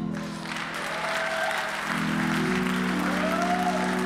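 Congregation applauding over sustained keyboard chords, with the chord changing about halfway through.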